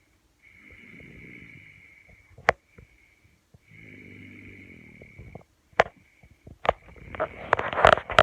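Snoring: two slow snoring breaths, each about two seconds long, with a high whistling tone running along with them. Three sharp clicks come between and after the breaths, then a loud burst of rustling and knocks near the end, the loudest sound.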